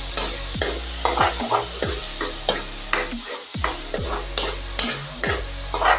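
Steel ladle scraping and clacking against an iron kadai about twice a second, stirring chopped onion, chilli, garlic and tomato that sizzle in hot oil.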